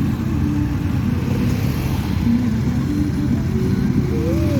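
Superbike engines running with a low, steady exhaust rumble.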